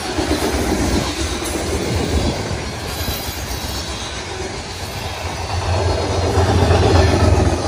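Freight train of covered hopper cars rolling past, steel wheels running on the rails. Near the end a low drone grows louder as the rear distributed-power diesel locomotive approaches.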